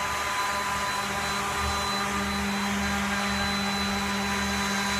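Electric sander rigged onto a Roomba robot vacuum, running with a steady motor hum and a thin high whine.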